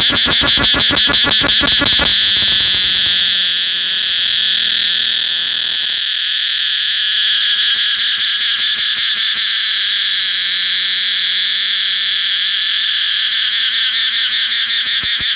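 Cicada calling close up: a loud, steady high-pitched buzz, pulsing rapidly for the first two seconds and again near the end.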